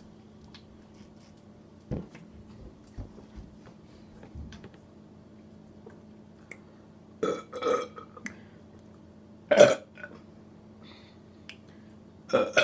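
People deliberately burping up gas from carbonated soda: two short burps a little past halfway, a louder one about two seconds later, and another at the very end.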